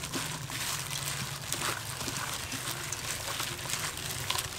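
Plastic-gloved hand mixing flour-coated shrimp in a stainless steel bowl: crinkling plastic and wet squelching clicks, over a low steady hum.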